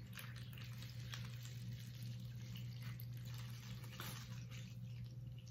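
A thin stream of water poured from a plastic pitcher into a shallow plastic tray: a faint trickle with small drips and splashes, over a steady low hum.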